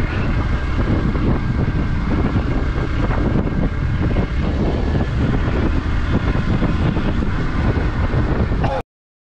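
Motorcycle under way: engine running with heavy wind rush on the microphone. The sound cuts off suddenly near the end.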